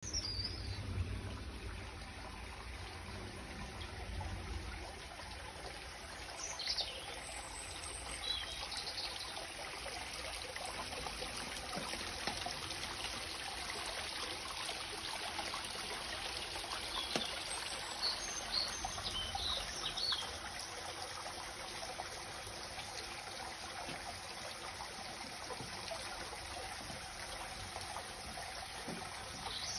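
Steady trickle of running water from a small garden water feature, with a few brief high chirps over it.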